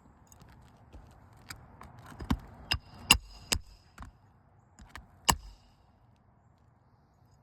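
Hammer striking roofing nails on an asphalt shingle: four quick blows in a row, then a single blow, several with a short metallic ring.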